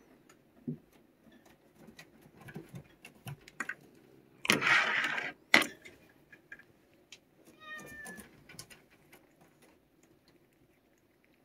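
A cat hissing once for about a second, followed a few seconds later by a short meow-like call, among small clicks and taps.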